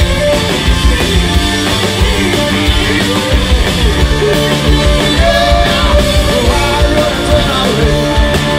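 Live rock band playing loudly: electric guitars, bass guitar and drums.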